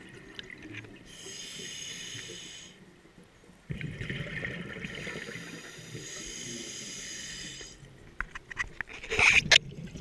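A scuba diver breathing through a regulator underwater. There is a hissing inhale about a second in and another at about six seconds, with a bubbling exhale rumbling between them. Near the end comes a louder burst of bubbles and clicks.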